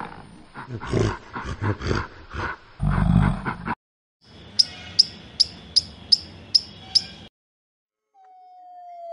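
Gorilla giving a run of deep grunts. Then a ground squirrel gives about seven sharp, high chirps, evenly spaced. Near the end a red fox kit gives one long whine that slowly falls in pitch.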